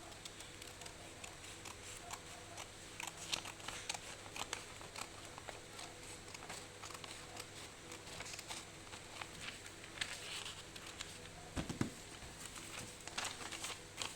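A sheet of paper being handled and folded by hand: irregular soft rustles and crinkles with scattered light ticks, and a dull thump near the end.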